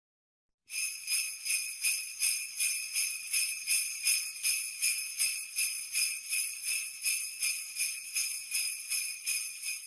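Sleigh bells shaken in a steady rhythm, about two and a half shakes a second, starting just under a second in and stopping near the end.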